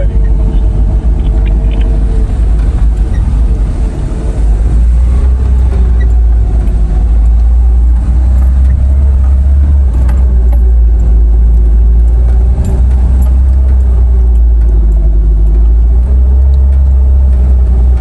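Cabin sound of a new three-door Lada Niva driving on a dirt forest track: a steady heavy low rumble with the engine's drone rising and falling in pitch, and faint rattles.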